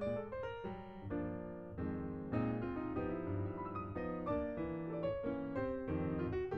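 Background music: a piano or keyboard playing a light melody of quick notes over chords.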